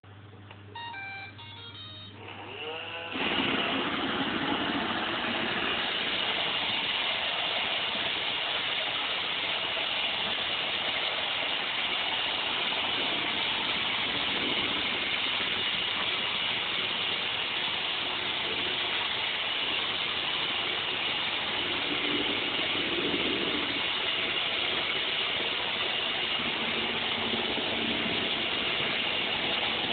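An iRobot Roomba robot vacuum plays a short tune of electronic beeps as its Clean button is pressed. About three seconds in its vacuum and brush motors spin up and run steadily, a whirring hiss with a faint high whine.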